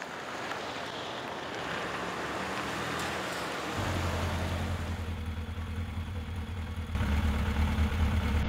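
Motor vehicle engine running over a steady hiss of road and street noise. A low engine hum comes in about four seconds in and grows louder near seven seconds.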